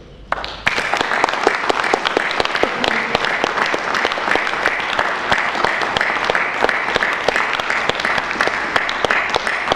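Audience applauding after a talk, many hands clapping densely and at a steady level, starting about half a second in.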